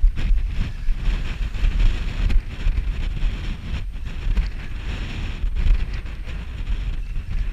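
Strong wind buffeting the camera microphone in gusts, over the steady hiss of breaking surf.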